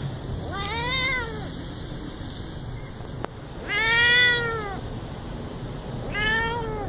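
Young cat meowing three times, each meow rising then falling in pitch; the middle meow, about halfway through, is the longest and loudest.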